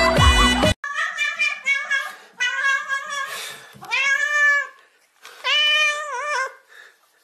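Music cuts off under a second in, then a cat meows repeatedly: about five drawn-out meows one after another, the last one long with a wavering end.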